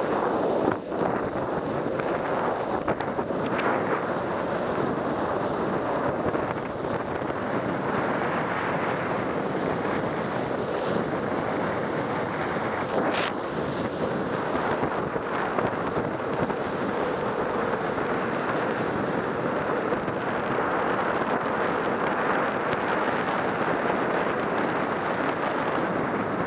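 Steady rushing wind on the microphone at downhill speed, mixed with the wet hiss of longboard wheels rolling over rain-soaked asphalt, with one brief sharper hiss about halfway.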